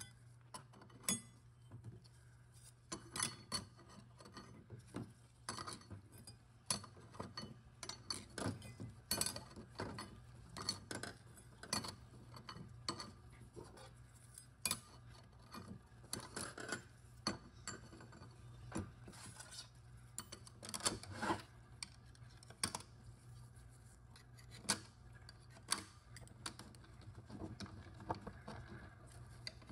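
Steel and friction clutch plates of a Subaru 5EAT automatic transmission's high/low reverse clutch clinking and scraping as they are handled and stacked into the clutch drum, with irregular light metallic clicks.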